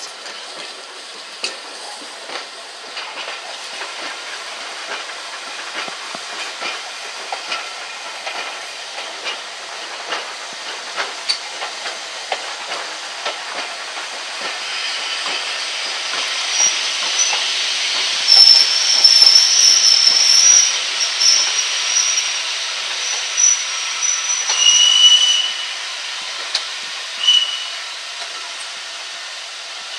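Passenger train running slowly, heard from a carriage window: wheels clicking over rail joints and pointwork over a steady rushing noise. About halfway through it gets louder, and high-pitched metallic wheel squeals come and go.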